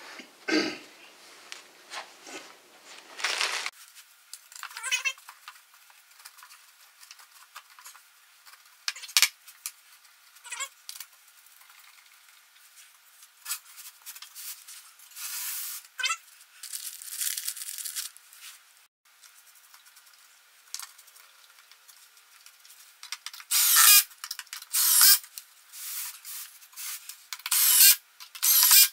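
Scattered rubbing, shuffling and light knocks and rattles from handling particleboard bookcase panels on carpet. A run of louder short rustling bursts comes in the last five seconds.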